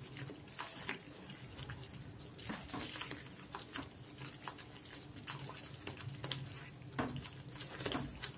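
A spatula stirring thick palm-jaggery halwa paste in a non-stick pan, with ghee being worked in: irregular soft squelches and scraping clicks as the paste folds over and the spatula drags along the pan, busier in two stretches.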